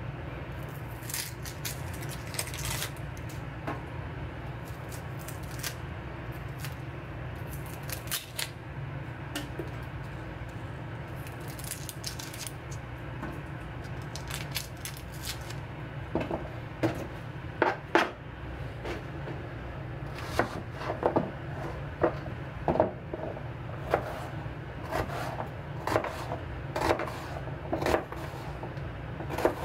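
Kitchen knife slicing an onion on a cutting board: sharp, irregular knocks of the blade on the board, roughly one or two a second, from about halfway through. Before that only light rustles and clicks, over a steady low hum.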